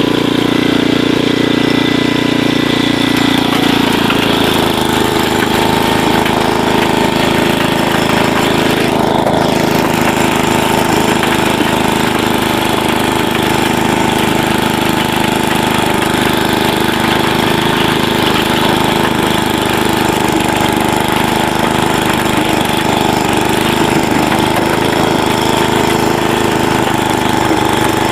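Small gasoline engine of a mini rototiller running steadily while tilling garden soil. Its note shifts about four seconds in and then holds.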